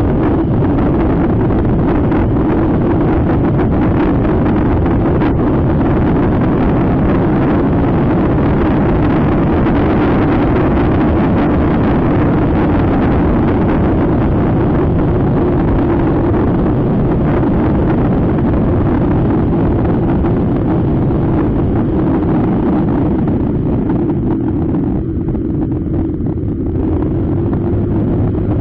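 Scooter riding at road speed, heard as a heavy, steady rush of wind rumbling on the action camera's microphone, with a steady engine drone underneath. It eases off a little about three-quarters of the way through.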